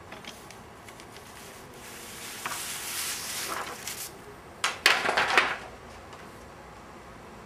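Handling noise: a rustle of about two seconds, then a quick cluster of sharp clicks and rustles about five seconds in, the loudest part.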